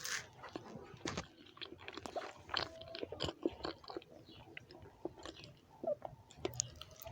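Close-miked chewing of a mouthful of rice and beans: a run of irregular mouth clicks and smacks.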